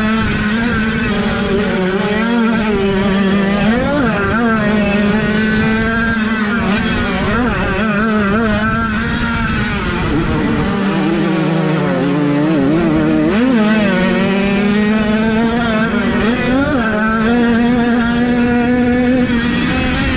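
Several 50cc two-stroke motocross bikes racing, their engine notes rising and falling over one another as the riders work the throttle. The main engine note drops in pitch about eleven seconds in and climbs back up about two seconds later.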